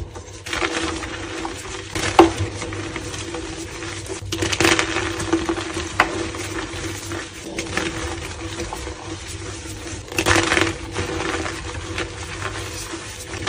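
Hands crushing and crumbling blocks of reformed gym chalk into powder: a dry, gritty crunching with sharper cracks as pieces break, loudest in a few spells, around two, four and ten seconds in.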